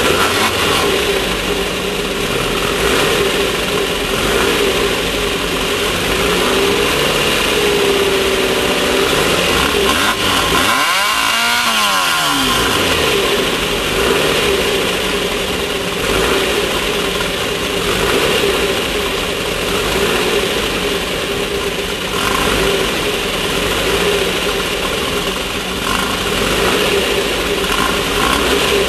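Race car's air-cooled 1600 cc VW engine running hard under load. About ten seconds in the revs drop and then climb back up, a brief lift and re-acceleration.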